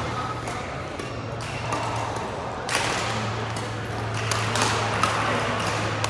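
Badminton hall sounds: sharp racket strikes on shuttlecocks from the courts, several times, over a steady low hum.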